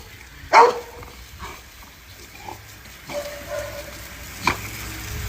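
A dog barks once, loudly, about half a second in. Quieter animal noises follow, with a short sharp click near the end.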